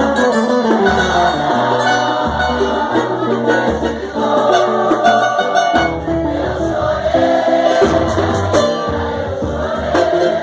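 Live samba group playing, with a bass line of repeated low notes, light percussion and several voices singing together.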